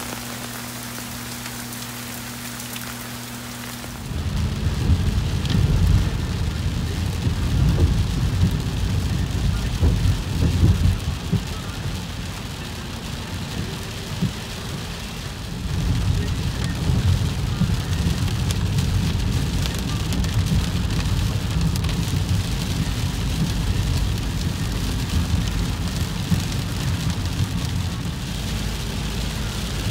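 Heavy rain hissing on pavement, then from about four seconds in, rain on a car's windshield and roof heard from inside the moving car, over a deep, uneven rumble of the car on the wet road.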